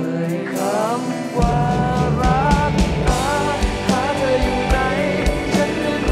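Live rock band playing: a sung melody over electric guitar, with bass and drums coming in hard about a second and a half in.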